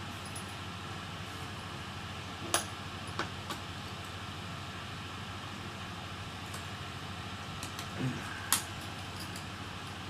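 Small clicks and taps of laptop screws and hand tools being handled and set down, about five in all, the two sharpest about two and a half seconds in and near the end, over a steady room hum.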